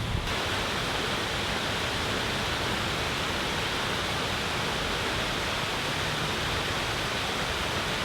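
Steady, even rushing noise that sets in abruptly just after the start and holds constant.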